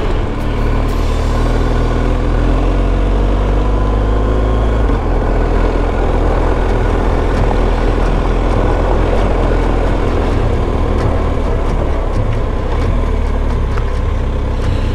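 BMW R1250 GS Adventure's boxer-twin engine running steadily under way on a wet dirt and gravel road, its pitch shifting a little with the throttle. It is mixed with a steady rush of wind and tyre noise.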